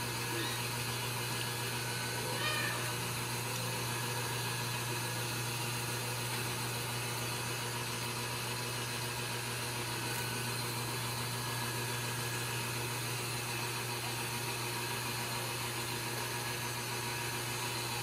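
Ragdoll kitten giving a short, high mew about two and a half seconds in, with a fainter one near the start, over a steady hum and hiss.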